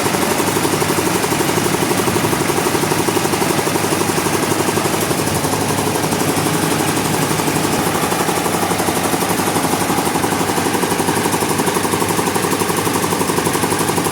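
Sawmill machinery's engine running steadily, an even drone with a fast regular pulse.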